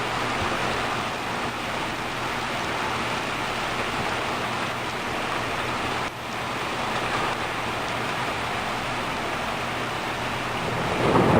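Heavy rain falling steadily in a sudden downpour. A low rumble of thunder begins near the end.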